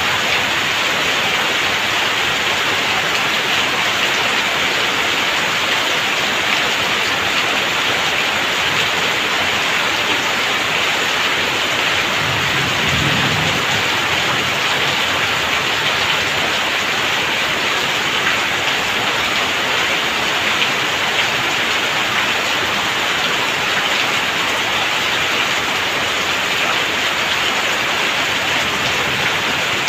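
Heavy rain falling steadily, with water pouring off roof eaves in streams and splashing onto a wet yard. A brief low rumble comes about halfway through.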